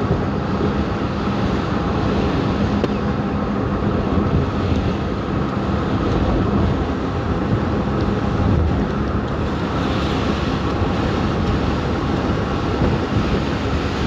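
Car driving on a wet road in rain, heard from inside the cabin: a steady rush of tyre and road noise. A faint engine hum runs under it for the first half.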